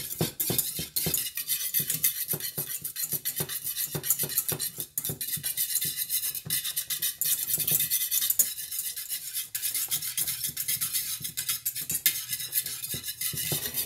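A utensil stirring strawberry sauce in a saucepan, scraping and clicking rapidly and without a break against the pan. The sauce is kept stirred so that it does not foam up as it cooks down.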